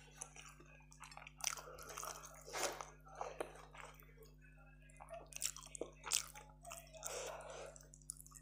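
Close-miked chewing and biting of a person eating with their hand, a run of irregular short mouth noises.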